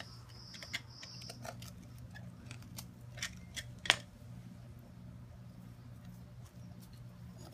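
Small pry bar scraping and grating against a concrete paver as it is levered up, then scattered clicks and scrapes of concrete on concrete as the loose paver is worked out by hand. One sharp clack about four seconds in is the pry bar set down on the pavers. A steady low hum runs underneath.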